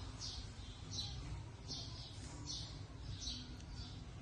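A small bird chirping repeatedly outdoors: short high chirps every half second to a second, often in pairs, over a steady low rumble.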